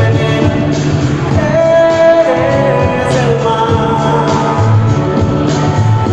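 Karaoke backing track of a pop ballad with a steady bass beat; a voice sings long held notes over it from about a second and a half in.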